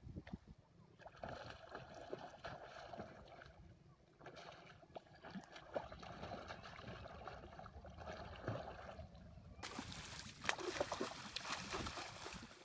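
Faint river water and wind noise with scattered small splashes. About two-thirds of the way through, a louder, harsher spell of splashing sets in as a hooked salmon thrashes at the surface.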